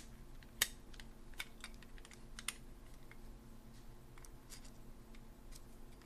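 Scattered light clicks and taps of a Weiser deadbolt's metal cover and housing being handled and fitted together, at an irregular pace of a few a second at most.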